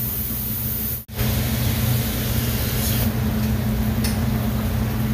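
Steady fan-like background noise with a low hum, cut off for an instant about a second in.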